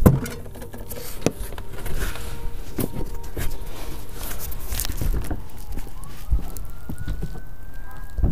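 Rustling, rubbing and scattered knocks from an action camera being handled and moved, starting abruptly. A siren sounds in the distance, rising and then falling in pitch near the end.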